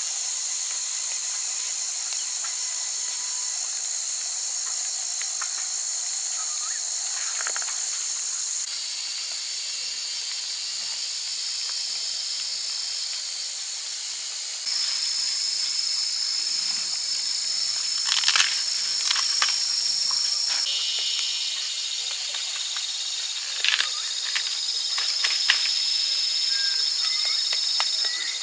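A chorus of insects: several steady high-pitched trills layered together, with the mix shifting in pitch twice. A few brief sharp clicks or taps come in the second half.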